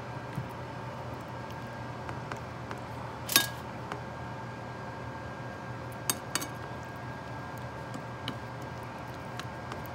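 Metal kitchen tongs clinking against a ceramic plate while turning fish pieces in flour: scattered light clicks, the loudest about a third of the way in and two more in quick succession a little past halfway. A steady low hum runs underneath.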